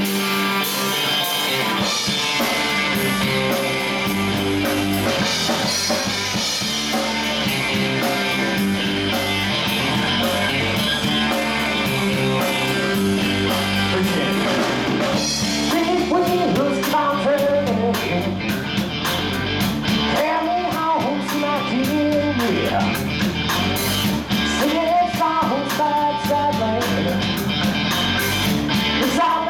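A live rock band playing loudly, with electric guitar, electric bass and drum kit, heard through the room. About halfway through, a wavering, bending melodic line comes in over the steady chords.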